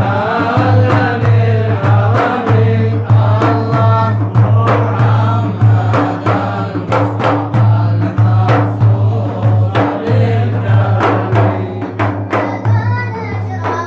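A group of voices chanting a devotional mawlid song of blessings on the Prophet Muhammad, with frequent drum beats keeping time.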